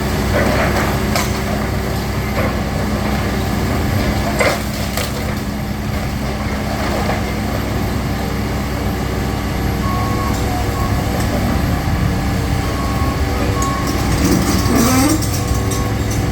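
Heavy demolition machinery running steadily, with a few knocks and crunches of building debris being broken up.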